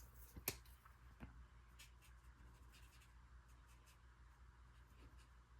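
Near silence with the faint scratch of a marker tip colouring on cardstock, blending colour into a stamped bird, and a few light ticks.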